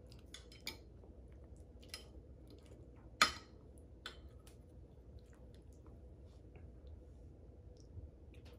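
A metal fork clinking and scraping against a ceramic plate while cutting a bite of lasagna: a few scattered light clicks, with one sharp clink about three seconds in.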